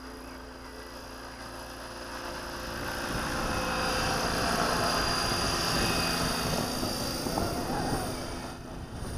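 Align T-Rex 600 flybarless RC helicopter flying past, a steady whine from its motor and rotor blades. It grows louder from about two seconds in, is loudest around the middle as it comes close, then fades as it moves away.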